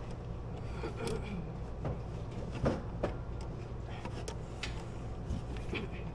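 Scattered light clicks and knocks, about half a dozen, over a steady low hum.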